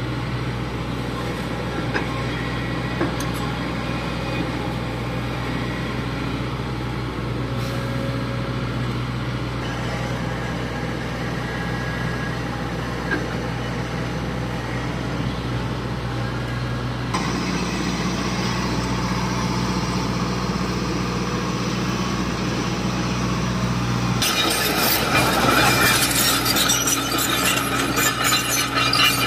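Heavy diesel machinery, the Kobelco excavator working a quarry, running steadily with a low engine hum that shifts up in pitch and grows slightly louder about two-thirds of the way through. About five seconds before the end a loud, dense rattling and clattering sets in over it.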